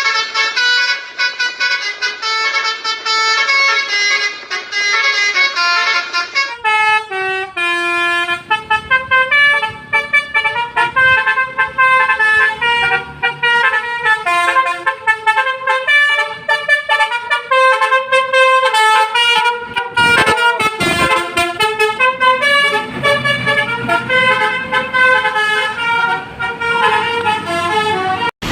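Telolet basuri bus horn, a multi-tone musical horn, playing a fast tune. Its notes step every fraction of a second, with several pitches sounding together. The tune changes about six and a half seconds in, and a low rumble joins underneath near the end.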